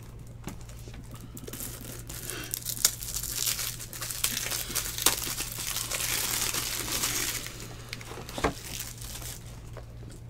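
Thin plastic crinkling and rustling as trading cards are slipped into clear sleeves and holders, with a few light clicks. It starts about two seconds in, builds to its loudest past the middle and fades out near the end, over a steady low electrical hum.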